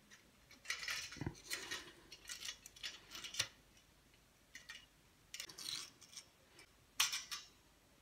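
Metal tweezers scraping and clicking against the coiled resistance wire and sheet of a hair dryer's heating element, in short irregular scrapes with gaps between.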